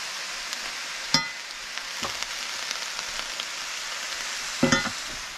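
Vegetables sizzling as they fry in a skillet, a steady hiss. A sharp metal tap comes about a second in and a louder clatter near the end as a fork and spatula turn the spinach, onion and pepper in the pan.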